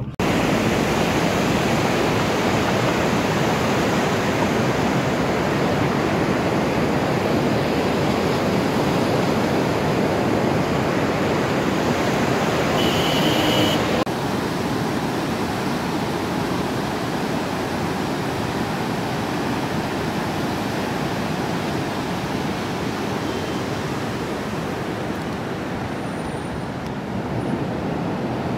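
Fast-flowing, whitewater mountain river rushing steadily. The sound changes abruptly about halfway through and is a little quieter afterwards.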